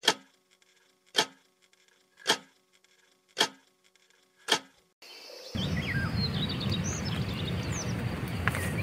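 Five sharp, evenly spaced hits about a second apart over silence, an edited transition effect. About five seconds in, outdoor ambience takes over: steady background noise with birds chirping.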